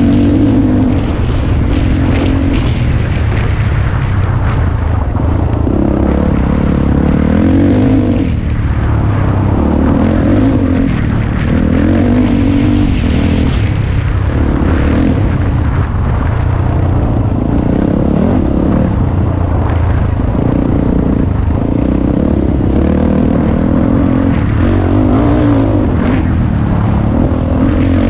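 Dirt bike engine running loud and continuously on a rough bush trail, its revs rising and falling over and over as the throttle is opened and closed.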